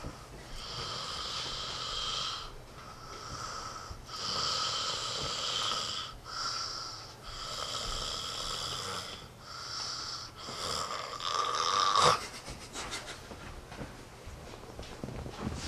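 Loud snoring from a sleeping man: a run of rasping breaths, each one to two seconds long. The loudest builds up and cuts off sharply about twelve seconds in, and the breaths are quieter after it.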